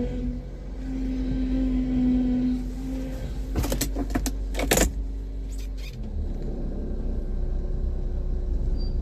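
Toyota Corolla Altis (9th generation) idling while the steering is turned at a standstill: the hydraulic power steering gives a steady low whine for about the first three seconds, then sharp clicks and squeaks come around four to five seconds in, after which only the idle remains. The whine and noise come from the power steering being short of fluid.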